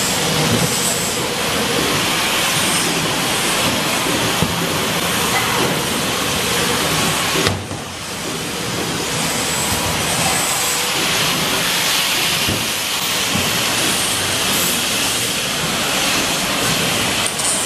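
Steady, loud factory machinery noise, an even hiss with no clear tone, with a brief dip about seven and a half seconds in.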